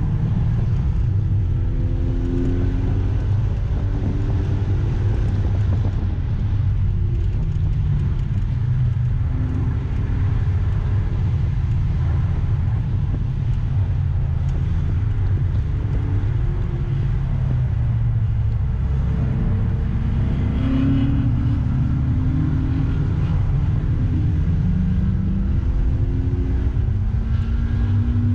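Mazda MX-5's four-cylinder engine heard from inside the cabin at speed, revs climbing and dropping back with gear changes, over a heavy low rumble of road and wind noise. The revs rise repeatedly near the end as the car accelerates.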